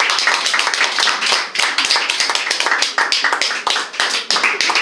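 Audience clapping and applauding, the dense clapping thinning into scattered claps toward the end.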